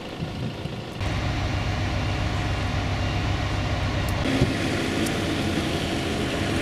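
Steady low rumble of motor vehicles running, with a noisy hiss over it; the sound steps up about a second in and changes a little past four seconds as the shots cut.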